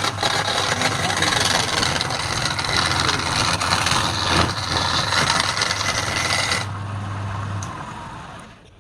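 Wood lathe running with a tool or abrasive working the spinning wood, a steady loud rasping over a low motor hum. The rasping stops about two-thirds of the way through, and the motor hum fades out near the end as the lathe winds down.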